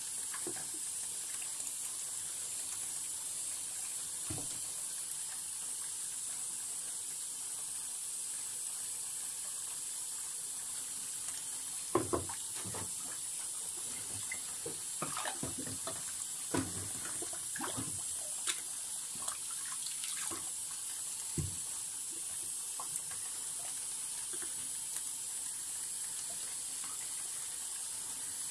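Tap water running steadily into a sink full of whetstones. Partway through comes a cluster of short knocks and clacks as the whetstones are picked up and set down.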